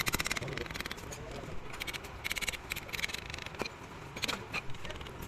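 Several short bursts of fast, even clicking, each lasting a few tenths of a second, from hand tools at work.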